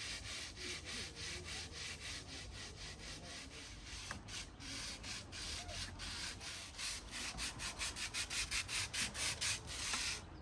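Hand sanding the painted steel roof of a widebeam canal boat: steady back-and-forth strokes, about three a second, coming faster and a little louder in the last few seconds. The top of the old paint is being taken off to prepare the roof for its final coat.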